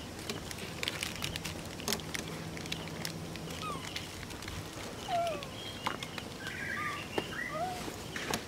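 Baby macaque giving a run of short, high squeaking calls that bend up and down in pitch, in the second half, over scattered sharp clicks and crackles.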